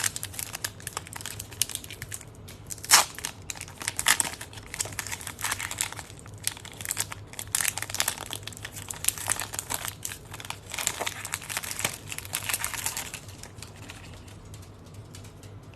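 Plastic-foil wrapper of an Upper Deck hockey card pack being torn open and crinkled by hand. The crinkling comes in irregular bursts, with one sharper crackle about three seconds in, and dies down over the last couple of seconds.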